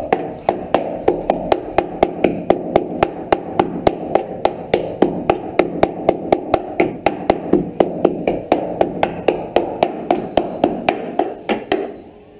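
Hammer tapping steadily and rapidly on the steel roof edge of a 1970s Ford pickup cab, about three ringing blows a second, knocking at the rusted lip; the tapping stops suddenly near the end.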